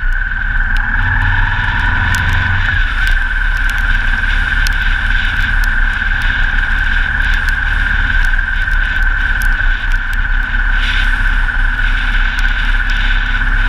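Motorcycle riding at steady speed, heard from a camera on the bike: a constant engine rumble under a steady high whine and a haze of wind and road noise, with scattered small ticks.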